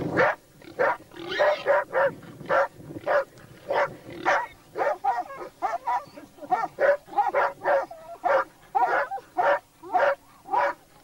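Hunting dogs barking repeatedly, about two barks a second, at a wild boar they are holding at bay.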